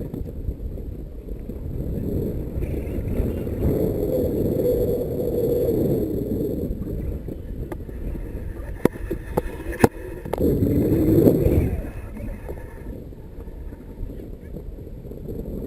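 Wind buffeting the microphone in flight under a paraglider canopy: a heavy, rumbling roar with a few sharp clicks about nine to ten seconds in.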